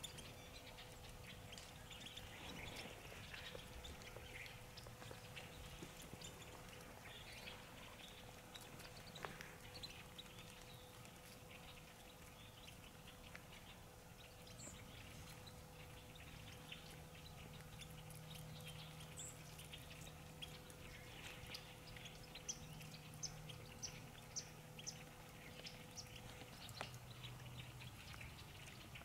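Near silence: faint open-air quiet with scattered soft chirps and small ticks, and a few sharper little clicks near the end.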